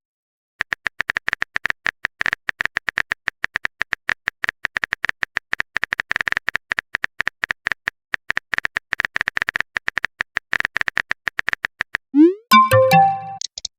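Rapid irregular clicks of a phone-keyboard typing sound effect for about eleven seconds, then near the end a short rising swoosh and a few chiming notes, like a chat message being sent.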